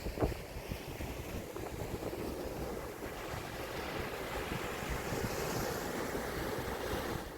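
Sea surf washing on the shore, with wind buffeting the microphone; the wash swells up around the middle.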